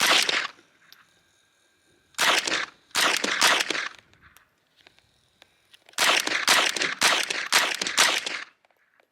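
Chiappa AK-22, a blowback .22LR semi-automatic rifle, fired shot after shot in irregular strings: one shot at the start, a quick run a couple of seconds in, then a longer run of rapid shots about six seconds in. Each sharp crack is followed by a short echo.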